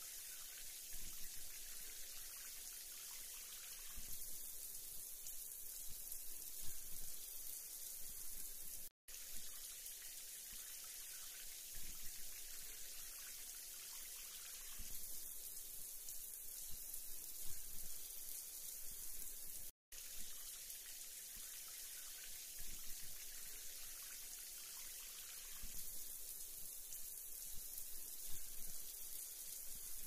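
Waterfall rushing over boulders: a steady hiss of falling water that cuts out to silence for a split second twice.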